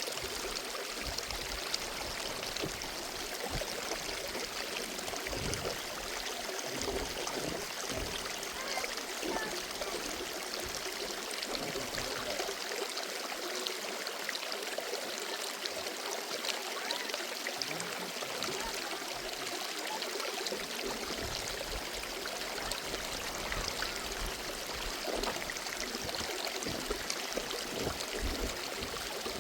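Water running steadily, like a small mountain stream or spring flowing.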